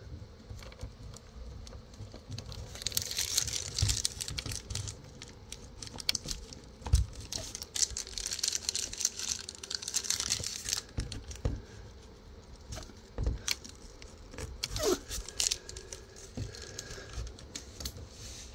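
Close hand-handling noise: rustling and crinkling in two longer stretches, with scattered light clicks and a few sharper knocks.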